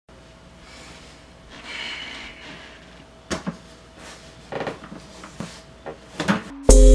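A scatter of short knocks and creaks as a person steps up to an office chair and grips its backrest. Loud music with a heavy bass cuts in suddenly at the very end.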